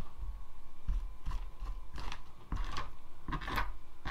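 Small comb raked through synthetic faux fur, about six scratchy strokes in quick succession, with light handling bumps underneath.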